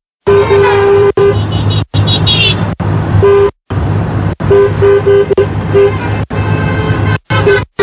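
A car horn tooting again and again: a long blast near the start, then single toots and a quick run of short toots about halfway, over the steady hum of the car's engine in the cabin. The sound cuts out for brief moments several times.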